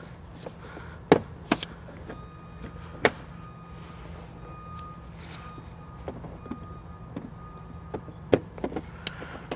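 Plastic push pins being pried out of a UTV's plastic dash panel: sharp clicks and snaps, two about a second in, one near three seconds, and a quick cluster of several near the end.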